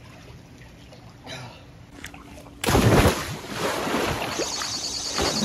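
Wind buffeting the microphone in hurricane conditions: a quieter rushing start, then a sudden loud gust about two and a half seconds in that keeps on.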